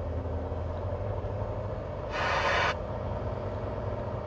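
Tractor-trailer engine rumbling steadily, heard from inside the cab, with a short hiss about two seconds in.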